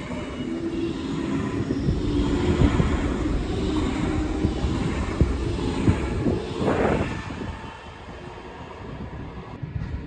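German electric multiple unit train running, with a steady rumble and a held hum from its drive, a short rush of noise about seven seconds in, then quieter.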